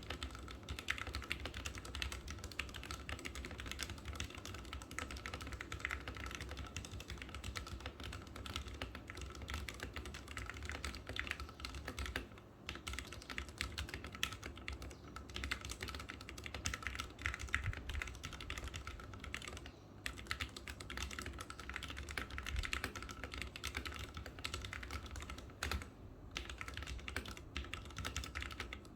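Fast, continuous typing on a Ducky One 2 SF mechanical keyboard with linear Cherry MX Red switches, a dense run of key clicks and bottom-out taps, broken by short pauses three times.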